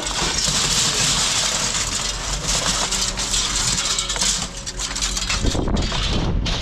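An engine idling steadily, with metal rattling over it.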